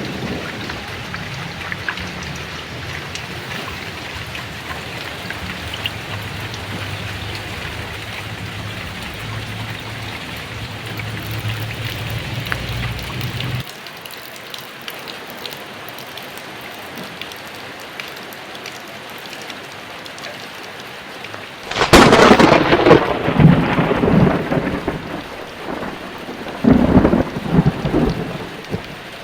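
Heavy rain falling steadily with thunder. A low rolling rumble under the rain cuts off abruptly about halfway through; then a loud, sharp thunderclap comes about three-quarters of the way in, followed by rumbling, and a second peal near the end.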